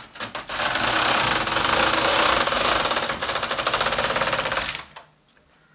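Brother KH260 knitting machine carriage pushed across the needle bed, knitting the first row: a loud, rapid clatter of the carriage running over the needles for about four seconds, stopping suddenly near the end.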